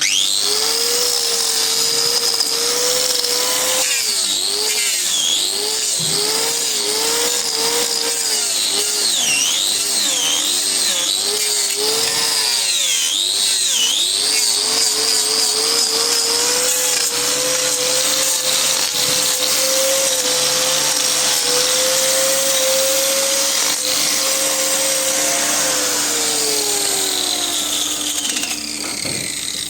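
Handheld power grinder trimming a cow's hoof, its motor whine dipping in pitch again and again as the disc bites into the hoof horn and recovering between cuts. Near the end the whine falls away as the tool is switched off and spins down.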